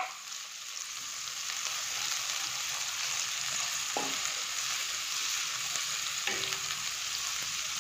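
Sliced onions sizzling in hot oil in a kadai, stirred with a wooden spatula: a steady frying hiss with a couple of faint knocks.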